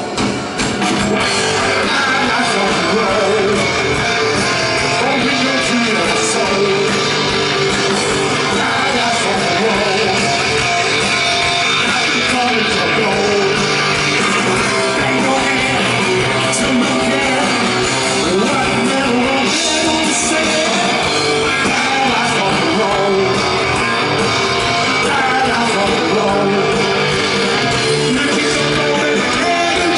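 Heavy metal band playing live and loud: distorted electric guitar and bass guitar with a sung lead vocal, steady throughout.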